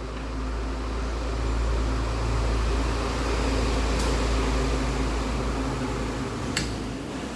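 Yoshida YD3-65N drilling machine running with a steady low hum that swells over the first couple of seconds and eases off near the end. It runs smoothly. Two sharp clicks come about four seconds in and a little after six seconds.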